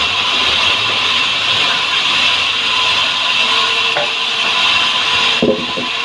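Sawmill band saw running with a steady high hiss as it saws salam hardwood. A little over five seconds in, the hiss drops and a few short low knocks sound.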